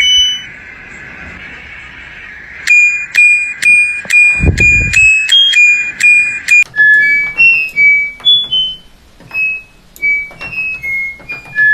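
Washing machine control-panel beeps. Short electronic beeps, each with a click, come about twice a second on one pitch for several seconds. They then step through different pitches like a little tune. A low thud comes about four and a half seconds in.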